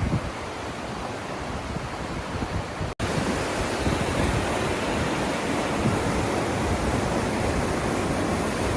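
Steady rush of creek water. It cuts out for an instant about three seconds in and comes back louder.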